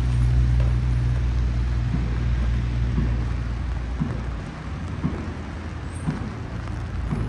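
Steady rain falling, with scattered drops ticking sharply. A low vehicle engine rumble underneath fades out about four seconds in.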